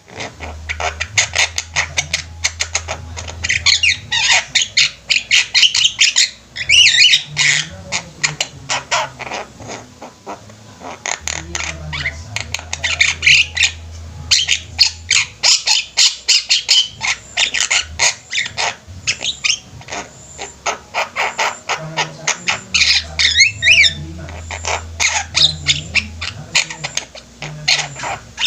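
A group of Javan mynas chattering and squawking continuously, many fast calls and clicks overlapping; a low hum comes and goes underneath.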